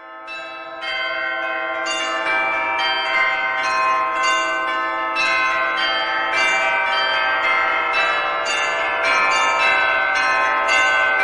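A peal of church bells, many bells struck in quick succession about two to three times a second, their ringing overlapping. It swells in over the first second.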